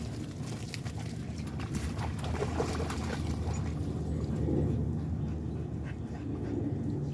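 Dogs making short, faint vocal sounds over a steady low rumble.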